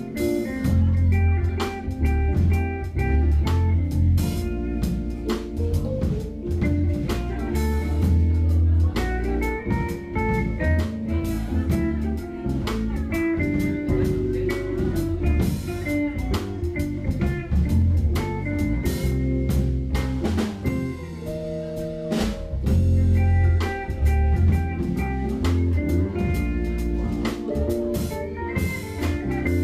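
Live jazz-fusion band playing: electric guitar, electric bass, keyboard and drum kit with cymbals, strong bass notes under a moving melodic line.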